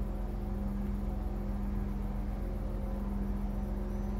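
Stadler 646/946 diesel multiple unit idling at a standstill, its diesel power unit giving a steady low hum with a strong even drone.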